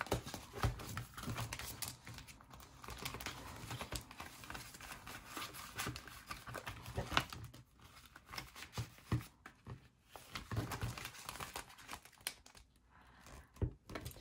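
Paper banknotes rustling and crinkling in the hands as they are counted and slid into the plastic pockets of a ring-binder cash envelope, with scattered soft clicks and taps.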